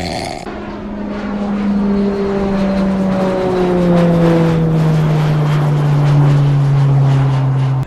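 Jet airliner flying past: a steady engine drone over a rushing noise, its tone sliding slowly down in pitch as it grows louder over the first few seconds.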